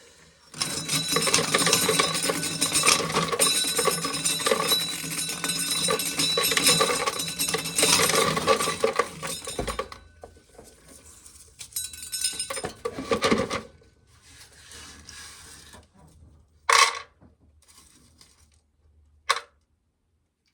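Dry corn kernels rattling down into a container as ears are shelled by hand, in a dense clatter for about ten seconds and then a shorter burst. Two sharp knocks follow near the end.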